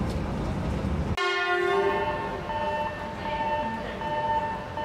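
Running rumble heard from aboard an E8 series Yamagata Shinkansen train. About a second in, it gives way to an E8 arriving at the platform, with a short blast of a train horn followed by a high beeping tone repeating about once a second.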